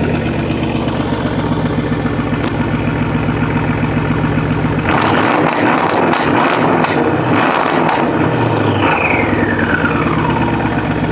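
Mercedes CLS 550 twin-turbo V8 with a straight-piped exhaust and a burble tune, idling loudly just after start-up. About five seconds in it is blipped, with a few seconds of crackling and popping from the exhaust, then settles back to idle.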